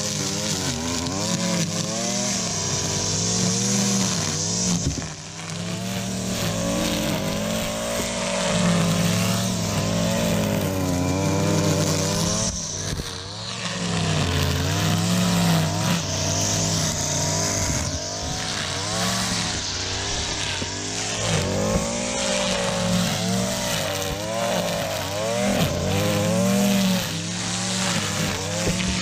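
Gas string trimmer running at high throttle and cutting through thick grass and weeds, the line's hiss over the engine. The engine pitch rises and falls as the throttle is worked, easing off briefly twice.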